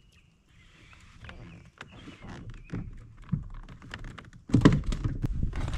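Light clicks and knocks of fishing gear being handled aboard a plastic kayak, turning about four and a half seconds in into loud rummaging with repeated thumps and rustling against the hull and seat.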